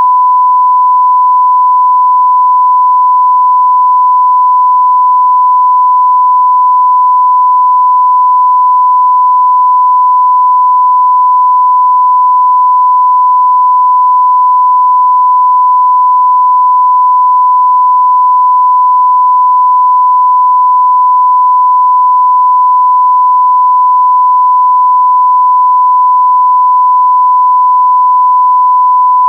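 Long electronic beep sound effect of the kind used as a censor bleep: one steady pure tone, loud and unbroken, never changing in pitch or level.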